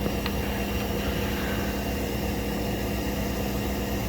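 Smoke machine running steadily while it pushes smoke into the plugged-off intake to find a vacuum leak: a constant mechanical hum over a low rumble and hiss.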